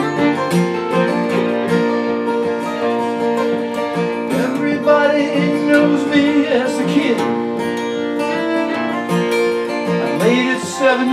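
Instrumental break on two acoustic guitars and a fiddle. The guitars strum steadily while the fiddle plays a melody with sliding notes, most plainly about halfway through and again near the end.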